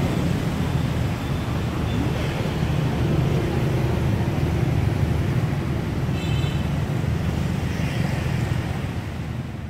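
Steady rumble of street traffic, motorbikes and cars running past at close range, with a short high-pitched sound about six seconds in; it fades out near the end.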